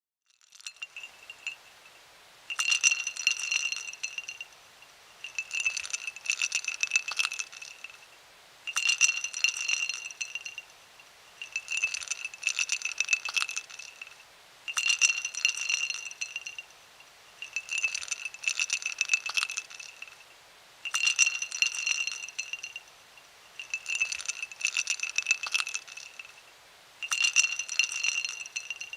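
Ice cubes clinking and rattling in a glass, the glass ringing at a steady pitch. The clatter comes in nine similar bursts, about one every three seconds.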